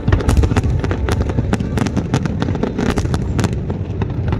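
Fireworks going off in rapid succession: many sharp bangs and crackles over a continuous low rumble.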